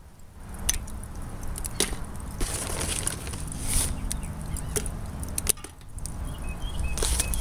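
Dry hickory wood chips scattered onto hot lump charcoal, with irregular sharp ticks and crackles as the chips land and start to smoke.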